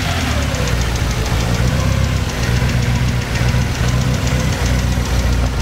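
Toyota AE86 Trueno's 4A-GZE four-cylinder engine idling steadily on a warm-up run, with a fast, light, regular ticking over the idle that the owner takes as a sign something in the engine is wrong.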